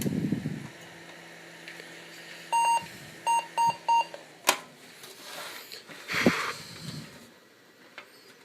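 PC motherboard speaker sounding a POST beep code, one long beep then three short ones about two and a half seconds in: the BIOS error signal of a board booting with no graphics card fitted. A low hum runs under it and stops about a second later, just before a sharp click.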